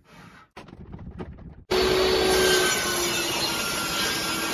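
A few light knocks as the board is handled, then a table saw starts suddenly just under two seconds in and rips the board to width: a loud, steady whine and hiss. Its pitch dips slightly as the blade takes the cut.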